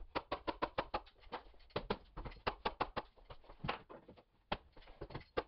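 Rapid, uneven string of sharp knocks from a mallet striking a pneumatic hardwood flooring nailer as it drives nails into the boards, with a short pause about four seconds in.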